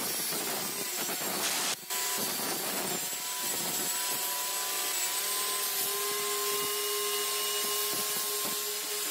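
Circular saw mounted upside down under a homemade table saw, running steadily while its blade cuts through the hardboard base of a large crosscut sled pushed across it, with a brief break in the noise about two seconds in. The sled is binding, very tight in its runners, as it is pushed through.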